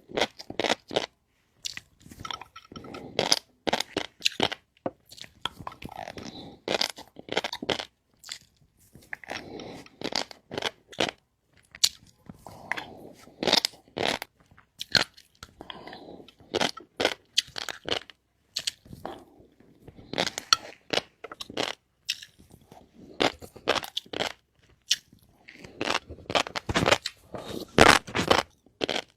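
Close-miked eating: a person biting and chewing crunchy food, with dense, irregular sharp crunches and clicks coming in clusters.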